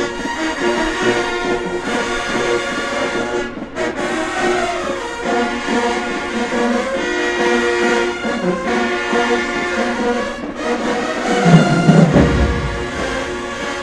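High school marching band playing a loud brass-led tune, trombones and trumpets carrying the melody. A deep low end comes in about twelve seconds in, the loudest part.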